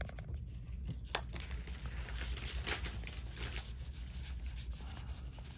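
Trading cards being flipped through by hand: soft slides and light clicks of card stock against card stock, over a low steady hum.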